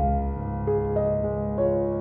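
Background music: a piano-like keyboard playing a slow melody over sustained chords, with a new chord coming in at the start and a fresh note about every half second.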